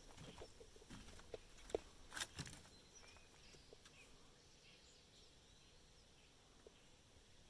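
Quiet outdoor ambience with faint, high bird chirps, and a few soft knocks, likely footsteps, in the first two and a half seconds.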